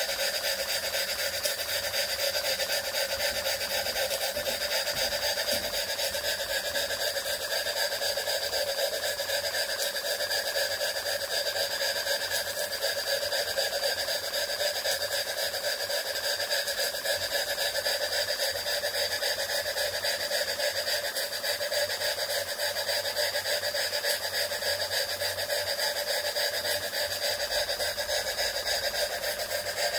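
Jensen 20G model steam engine running steadily at speed on steam, belt-driving a small generator: a fast, even patter of exhaust beats and mechanical clatter over a steady whir.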